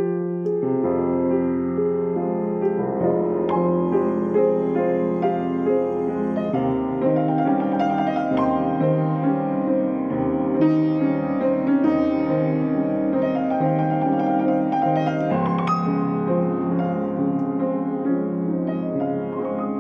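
Solo piano being played: sustained chords with moving notes over them, one new chord entering just under a second in, then continuous playing.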